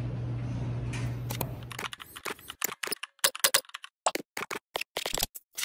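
A low steady hum for about two seconds, then a quick, irregular run of computer-keyboard typing clicks: the typing sound effect of an animated search-bar end screen.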